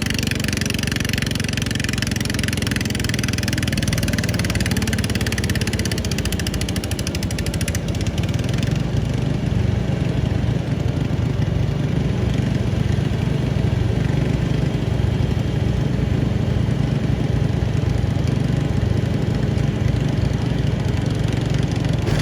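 Engine of a pulling lawn mower running steadily, its low hum growing stronger about eight seconds in.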